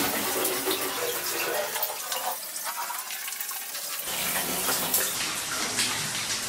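Water running in a shower, a steady splashing hiss with many small spatters.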